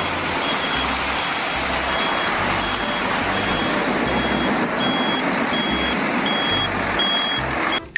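Water running and splashing as a toy cement mixer truck is rinsed clean, a steady hiss. A high electronic beep repeats about every 0.7 s through it, like a reversing alarm.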